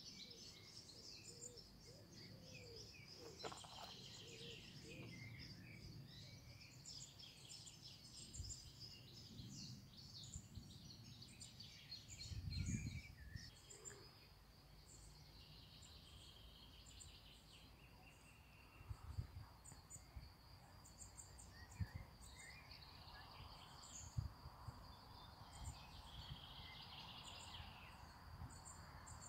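Faint birdsong with chirps and twitters throughout, under low handling bumps, the loudest a little before halfway. Several short knocks come in the second half.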